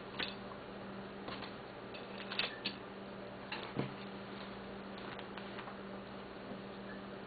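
Several light clicks and taps of small hard objects handled by hand, the loudest about two and a half and four seconds in, over a steady low electrical hum.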